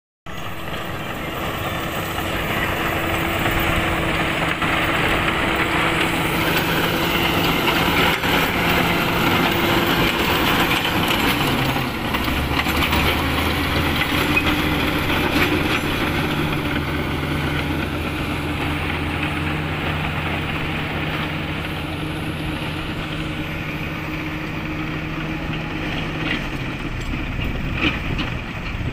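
Komatsu crawler bulldozer running, its diesel engine working under load with track clatter as the blade pushes and spreads soil. The engine note deepens about 12 seconds in and stays lower for most of the rest.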